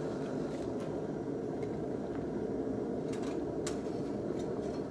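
A forge running with a steady low rushing noise, with a few faint clicks about three seconds in.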